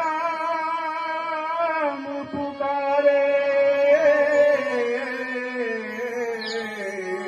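A man singing a Hindi song in long, drawn-out held notes with a wavering vibrato. The notes are sung over a steady drone, and the second note sinks slowly in pitch toward the end.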